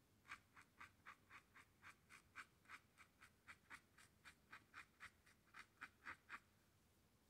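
Brush tip of a dual-tip marker stroked across canvas in quick, short strokes, about four a second, faint and scratchy. The strokes stop about six seconds in.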